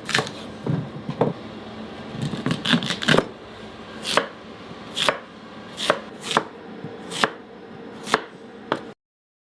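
A knife cutting through a raw sweet potato: a quick run of cuts in the first three seconds, then single sharp chops about once a second, stopping just before the end.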